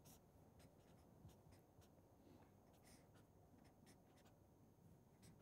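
Faint scratching and tapping of a felt-tip marker writing on paper, in a series of short strokes.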